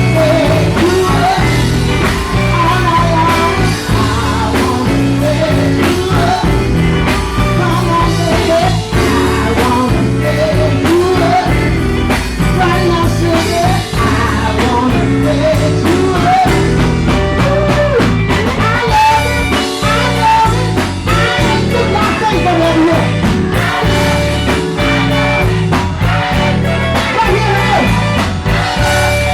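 Live blues band playing a steady groove, with a strong bass line and electric guitar.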